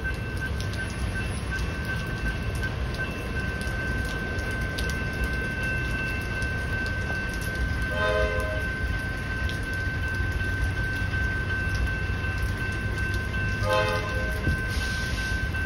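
Level crossing bell ringing as a steady high tone, while a train horn gives two short blasts, about eight seconds in and again about six seconds later, over a low rumble.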